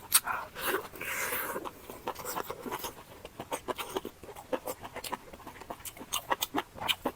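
Close-up chewing and biting: a run of short wet clicks and smacks of eating.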